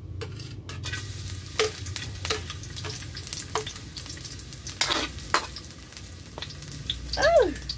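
Garlic sizzling as it goes into a hot frying pan, with a metal spatula scraping and knocking against the pan several times. Near the end, a short falling tone.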